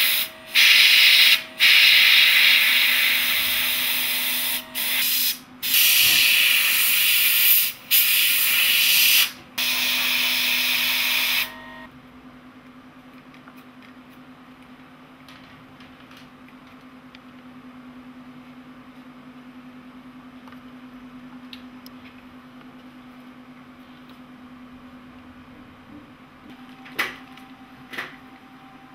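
Airbrush spraying paint: a loud hiss of air, cut off and restarted several times as the trigger is released and pressed again. About twelve seconds in the spraying stops, and only a low steady hum and a few faint clicks remain.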